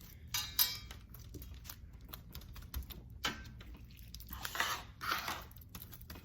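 Small plastic rhinestones being shaken out of their packet into slime, clicking and ticking irregularly, with a longer rustle of the packet about four and a half seconds in.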